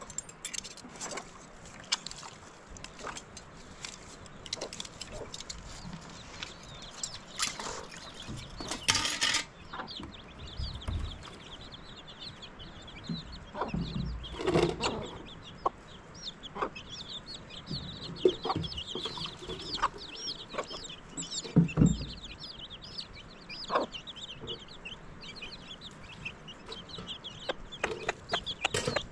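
A domestic hen clucking while her chicks peep constantly in rapid, high chirps, the peeping starting about a third of the way in. Before that, a few clinks of metal dishes being washed in a basin.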